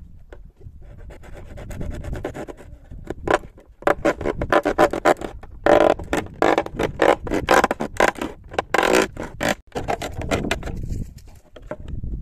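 Kitchen knife sawing through a plastic jug in quick back-and-forth strokes, several a second. The strokes start light, grow loud and dense from about three seconds in, and ease off near the end as the cut is finished.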